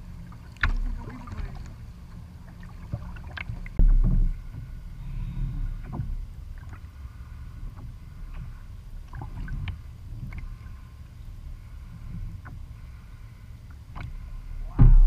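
Small waves lapping and slapping against the plastic hull of a kayak right under the microphone, over a steady low rumble of water, with a few louder slaps, the loudest near the end.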